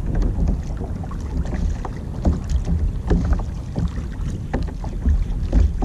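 Wind rumbling on the microphone, with small waves slapping and splashing irregularly against a plastic kayak's hull.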